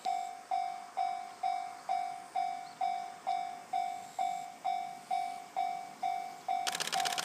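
Japanese railway level-crossing warning bell ringing a steady ding-ding, a little over two strikes a second, each ding fading quickly, signalling a train approaching. A short rush of noise joins it near the end.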